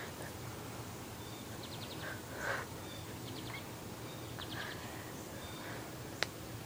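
Quiet outdoor ambience with a small bird chirping quick high trills, repeated every second or so. A brief faint noise comes about two and a half seconds in, and a single sharp click near the end.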